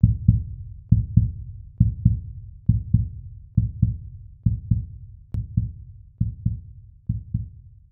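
Heartbeat sound effect: deep, low lub-dub double thumps, the pair repeating steadily about once every 0.9 seconds.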